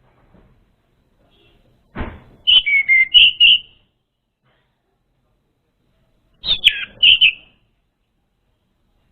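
Orange-headed thrush song: two short phrases of quick whistled notes, the first about two seconds in and the second about six and a half seconds in, with silence between them. A dull thump comes just before the first phrase.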